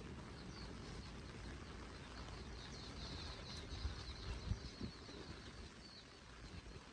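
Steady rain, with a small bird chirping in a quick run of short, high calls through the middle. A few low wind buffets hit the microphone.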